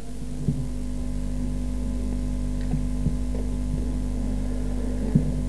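Steady electrical mains hum through a microphone and sound-system chain, with a few faint soft clicks.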